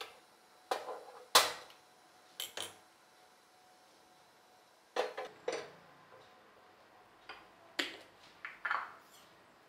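Steel cooking pots and utensils clanking against a stainless steel gas stove: about ten separate sharp knocks and clinks, the loudest about a second and a half in.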